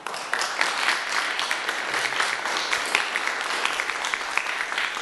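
Audience applause: many hands clapping. It breaks out suddenly right at the start, then continues steadily.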